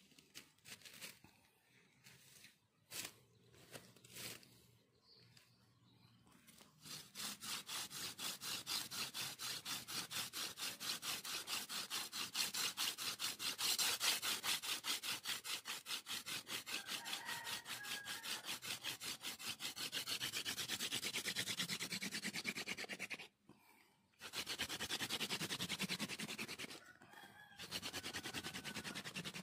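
A wooden hand-drill spindle is spun back and forth between the palms in a hole in a wooden plank, making a fast, rhythmic wood-on-wood rubbing. It starts about a quarter of the way in after a few scattered knocks, and breaks off briefly twice near the end. This is friction-fire drilling without a notch in the board.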